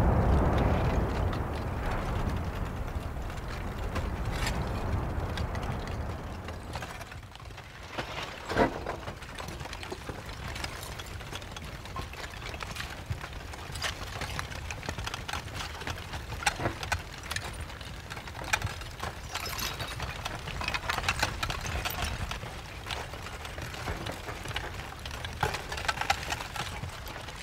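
Deep rumble of an erupting volcanic crater that fades away over the first several seconds, giving way to irregular crackling and clicking, typical of a cooling lava flow's crust.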